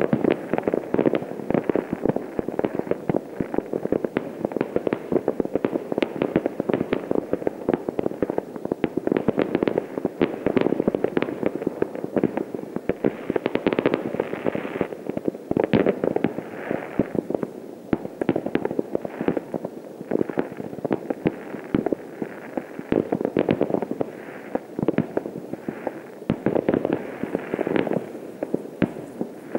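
Distant fireworks going off from many places at once: a dense, unbroken stream of bangs and cracks, several each second, overlapping into a continuous crackle.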